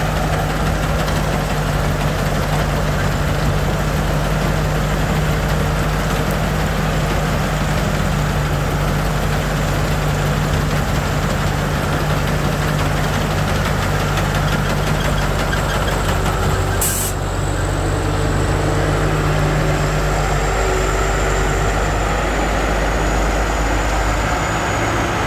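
Rice combine harvester running steadily as it cuts and threshes rice, its engine and machinery making an even drone. A single brief sharp click about two-thirds of the way through.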